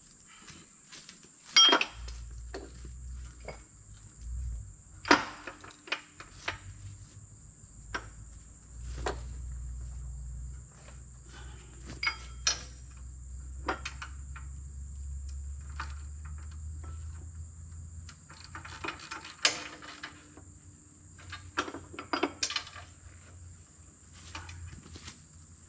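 Scattered metallic clanks and clicks from handling the axle and hub of a wooden pipe reel holding a coil of black poly water line, with several sharp knocks among lighter taps. Insects chirp steadily throughout, over a low steady rumble that starts about two seconds in.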